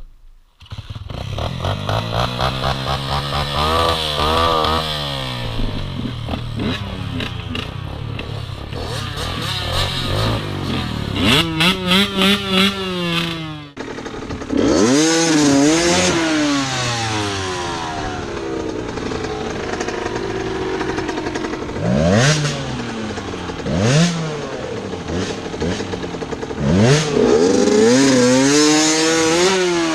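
Enduro motorcycle engines revving hard. The pitch climbs and drops again and again as the throttle is worked, with quick sharp rev blips. The sound changes abruptly about halfway through.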